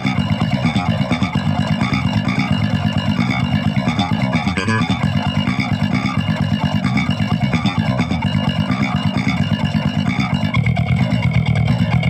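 Electric bass guitar played fingerstyle: a fast, unbroken stream of low plucked notes.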